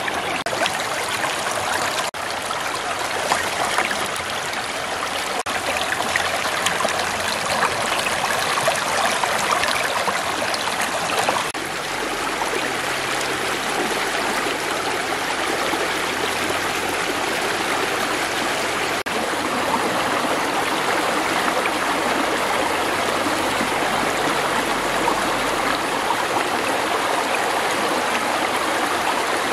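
Shallow stream running over pebbles and rocks: a steady rush and trickle of flowing water.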